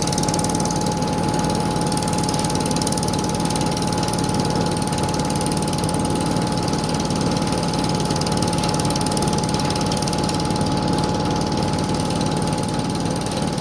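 Engine running steadily with a fast mechanical rattle and a steady high whine over a low hum, typical of the fire engine's pump engine feeding the hose line.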